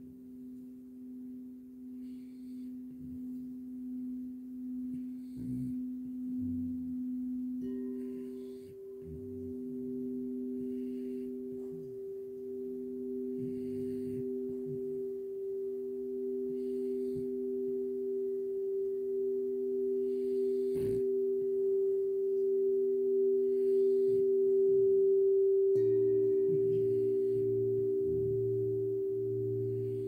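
Crystal singing bowls giving long, sustained, overlapping pure tones that swell slowly. A second, higher bowl joins about eight seconds in, and a third tone comes in near the end.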